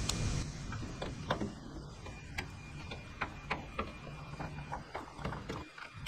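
Hand ratchet clicking as its socket drives the T30 Torx bolt of a rubber tailgate bumper, in an irregular run of sharp clicks a few times a second.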